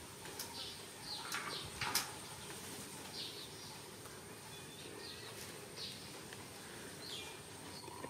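Faint outdoor ambience with small birds giving short, high chirps every second or so, and a few sharp clicks in the first two seconds.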